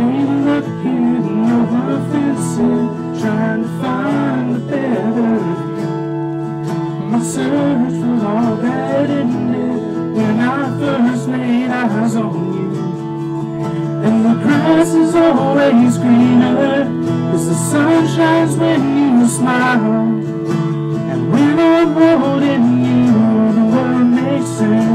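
A man singing into a microphone, accompanied by a strummed acoustic guitar.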